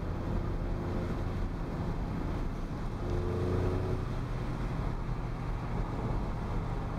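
Car engine and tyre noise heard from inside the cabin at steady cruising speed: a continuous low drone, with a faint steadier engine note coming up twice.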